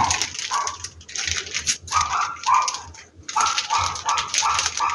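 A dog barking repeatedly in short, quick runs, over a crinkling of a plastic packet being squeezed.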